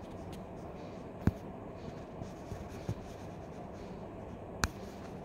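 Quiet steady room noise with two sharp clicks, one about a second in and one near the end.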